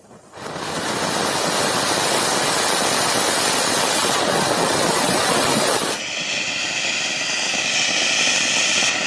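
Anar (flower-pot fountain firework) spraying sparks with a loud, steady hiss that comes in abruptly about half a second in. About six seconds in the hiss turns thinner and brighter.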